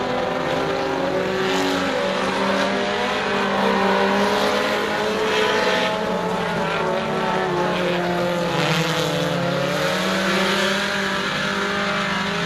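Several four-cylinder Super Stock race cars running laps together, their engine notes overlapping and rising and falling in pitch as they accelerate and ease off.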